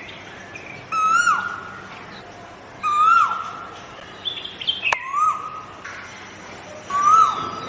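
Koel calling from a tree: four loud calls, about one every two seconds, each a held note that drops sharply at its end. Fainter, higher short calls come in between, and there is a sharp click about five seconds in.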